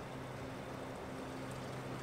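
Water running steadily from a hose into a stone trough, a constant splashing rush with a low steady hum under it.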